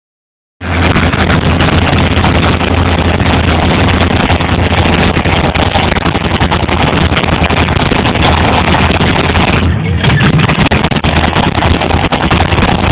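Lifted pickup truck's engine running hard and loud as the truck drives through a mud pit, starting about half a second in and staying heavy and continuous, with a crackling edge.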